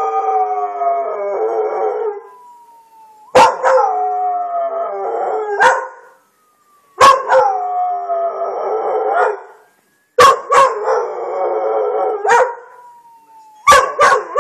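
Brittany dog howling: about five long howls, each opening with a sharp yip and lasting about two seconds, one following another every three seconds or so.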